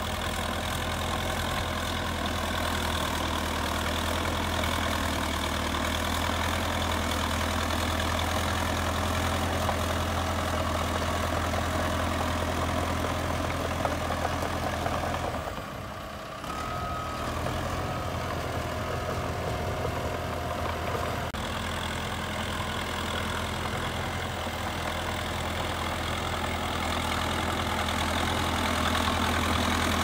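Caterpillar D3 crawler bulldozer's diesel engine running steadily with a low hum as the machine pushes dirt with its blade. The sound dips briefly about halfway through, then carries on.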